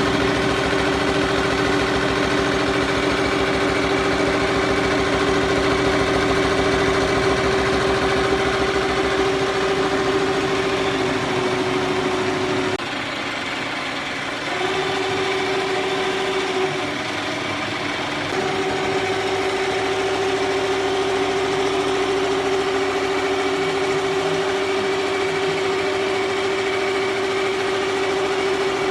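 He Feng single-head embroidery machine stitching, a steady hum with a fast, even needle rhythm. About 13 seconds in it drops quieter for a couple of seconds, and again briefly a few seconds later, before running on at full speed.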